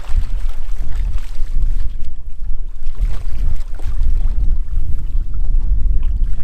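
A steady, loud low rumble of a boat on the water, with wind on the microphone.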